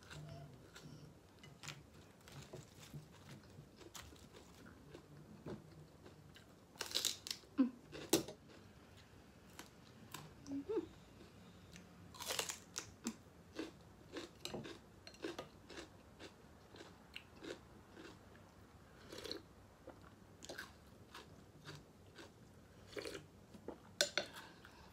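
Close-up mouth sounds of someone eating pho with meatballs: chewing with scattered small clicks, and a few louder sounds about seven and twelve seconds in.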